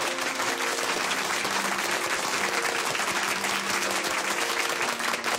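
Audience applauding steadily, dense clapping with a few held music notes faintly underneath.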